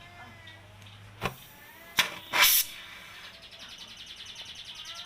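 Gas brazing torch being lit for brazing a refrigerator capillary tube: a sharp click and a short loud burst of hiss about two seconds in, then the flame hissing steadily.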